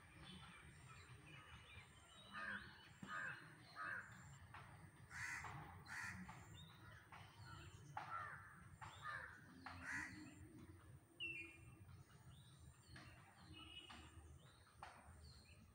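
Faint birds calling, a dozen or so short separate calls spaced irregularly, over a low steady rumble.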